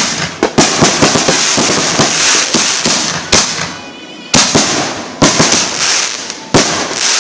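Aerial firework going off overhead: a rapid string of sharp cracks and crackling pops with hissing between them, easing off about four seconds in, then several more loud cracks.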